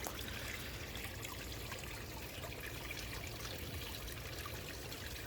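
Steady trickle of water running over the rocks of a garden pond's waterfall.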